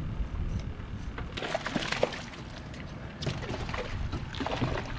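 Water splashing and sloshing around a small aluminium boat in two bursts, a hooked fish being played at the side.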